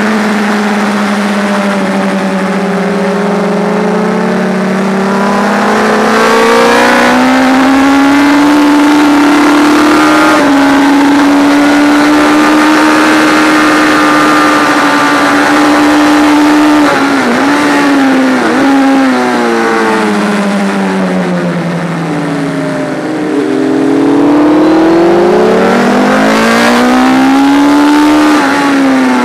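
Onboard sound of a racing motorcycle's engine at high revs on track. The engine note climbs over the first several seconds, holds steady, dips briefly twice, falls away for a few seconds, then climbs again near the end.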